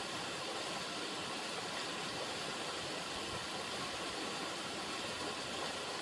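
River water running, a steady rushing hiss without breaks.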